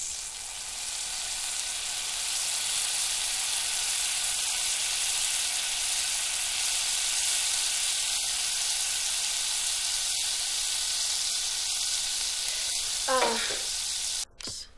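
Red sauce sizzling steadily in a stainless-steel saucepan on a gas stove, an even hiss that cuts off suddenly near the end.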